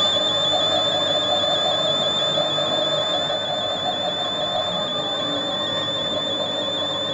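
1960s electronic science-fiction sound effect: a high, slightly wavering whistle-like tone held steady over a dense electronic hum.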